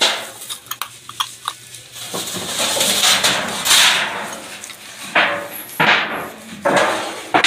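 Crunching and rustling of plastic rubbish and debris: a few sharp clicks first, then a long rustle and three shorter crunches near the end.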